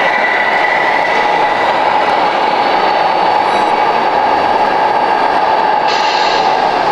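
A 1:14-scale RC Liebherr 946 hydraulic excavator working, its hydraulic pump giving a steady mechanical whine and hum over the exhibition hall's noise. About six seconds in comes a short hiss as soil pours from the bucket into the RC tipper truck's bed.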